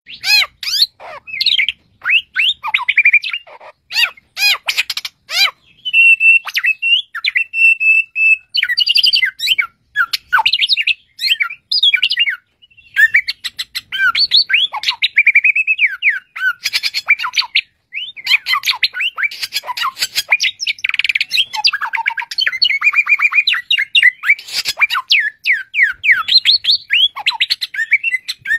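Caged samyong songbird singing loudly and almost without pause: a fast, varied medley of whistles, chirps, rasps and mimicked calls, with a steady held note about six to eight seconds in and short breaks near twelve and eighteen seconds.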